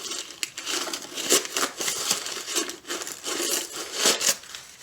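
Packing material crinkling and tearing as a thoroughly wrapped item is unwrapped by hand, in quick irregular rustles.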